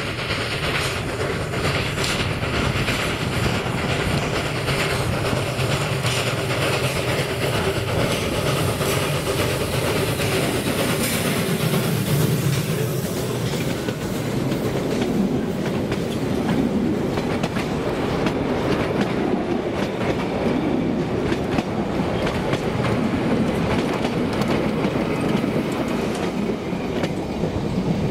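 Narrow-gauge train running past, its wheels clicking over the rail joints in a steady, continuous run.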